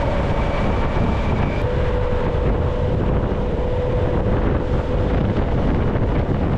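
Wind rushing over the microphone on a moving Zero SR/S electric motorcycle, with a faint steady whine from the electric drivetrain. The whine steps down slightly in pitch about one and a half seconds in.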